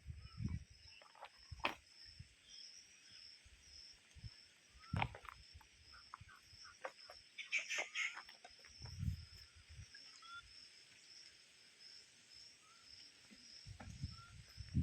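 Quiet outdoor ambience: a steady high chirping call repeating about three times a second, with scattered clicks and low thumps and a brief louder burst about halfway through.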